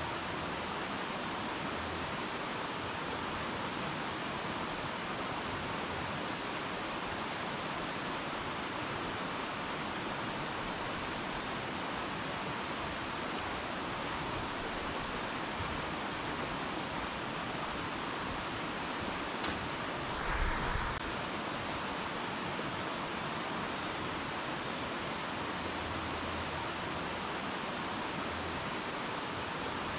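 Steady rush of a stream running over rocks and small rapids, with a brief low thump about twenty seconds in.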